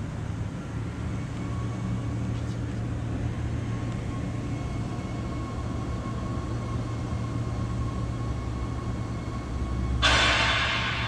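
Forklift's single-cylinder diesel engine running steadily with a low drone. About ten seconds in, a loud hiss starts abruptly.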